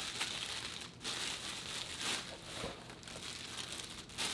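Plastic bubble-wrap packaging crinkling and rustling in the hands as a camera lens is unwrapped from it, with short pauses about a second in and near the end.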